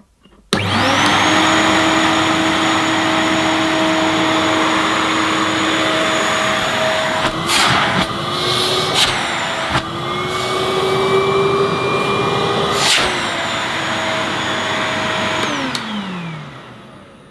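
Miele S228i cylinder vacuum cleaner (1100–1200 W) switched on: the motor starts suddenly and spins up to a steady whine over a rush of air, not very noisy but not ultra quiet. A few knocks and a small shift in pitch come midway as the machine is moved by hand, and near the end it is switched off and winds down with falling pitch.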